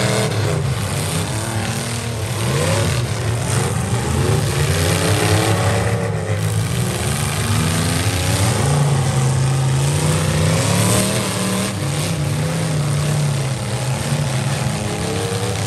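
Several demolition-derby truck engines revving, loud and overlapping. Their pitch rises and falls as the drivers work the throttles while pushing through the mud.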